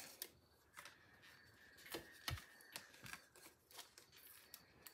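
Faint handling of paper and cardstock on a craft mat: light scattered clicks and rustles, with a soft thump a little over two seconds in.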